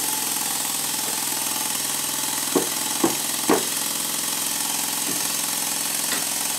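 A mallet knocks three times in quick succession on a Stuart Double 10V model steam engine, about half a second apart, a few seconds in. The knocks sit over a steady hiss and hum.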